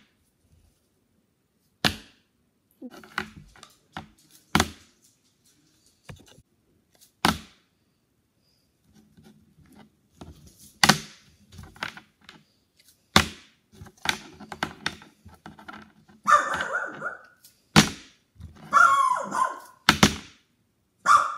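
Plastic Keurig K-cup pods being flipped and tossed onto a tabletop, landing with sharp clacks about ten times at uneven intervals. Two short cries are heard near the end.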